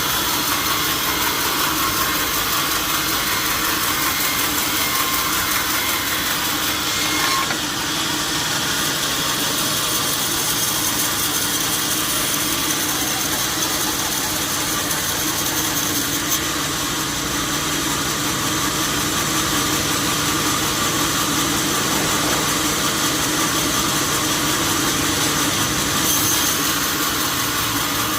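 Sawmill saw machinery running steadily, an even mechanical drone with a hissing upper edge that shifts slightly about seven seconds in.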